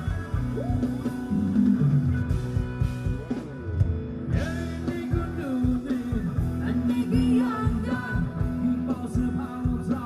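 Thai ramwong dance music from a live band, with guitar and a steady drum beat, and a singer's voice coming in about four seconds in.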